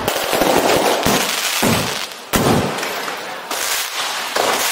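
Aerial fireworks shells bursting overhead: about half a dozen loud bangs, each trailing off into crackle.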